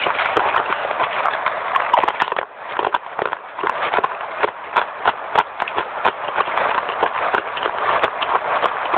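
Close-up crunching of baked clay being bitten and chewed: a fast, dense crackle of crisp snaps, with a brief lull about two and a half seconds in.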